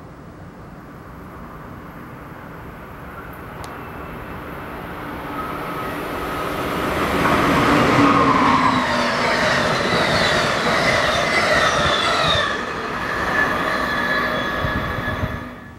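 Amtrak Keystone electric passenger train, a Siemens ACS-64 locomotive with Amfleet coaches, passing at about 80–85 mph: its rumble builds as it approaches, is loudest as it goes by about eight seconds in with a high ringing whine over the noise, then cuts off suddenly near the end.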